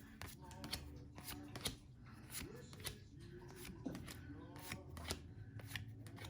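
Pokémon trading cards being flipped and slid one after another in the hands, a series of soft clicks and light rustles.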